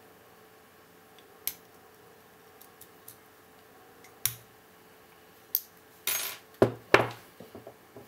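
Metal lock-picking tools clicking a few times against a 4-pin Zenith 38 brass padlock. About six seconds in there is a short scrape and two loud metallic clunks as the picked shackle comes open, then a light rattle.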